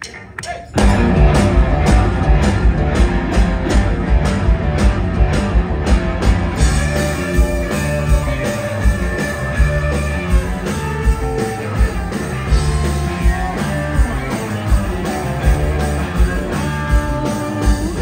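Rock band playing live: electric guitar through amplifiers, bass and a drum kit come in together loudly about a second in and carry on at a steady beat.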